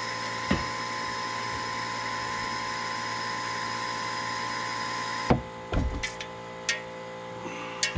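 Air-operated vacuum fluid extractor running with a steady hiss and hum while pumping old gasoline out of a boat's fuel tank; it shuts off suddenly about five seconds in, followed by a few clicks and knocks.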